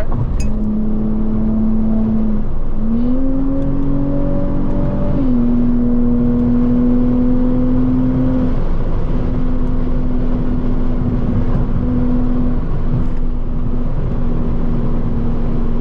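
Car engine droning steadily at highway speed over road and tyre noise, heard from inside the car. The engine note climbs about three seconds in as it accelerates, dips a little about two seconds later, then holds steady.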